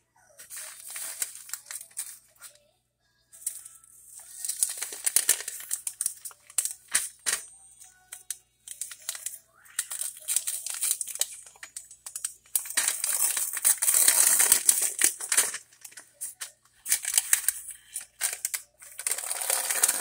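Paper wrapping crinkling and tearing as it is peeled off a dry, microwave-baked cornstarch-type (tapioca and arrowroot) brick, in several bursts of rustling with short pauses between, loudest a little past halfway.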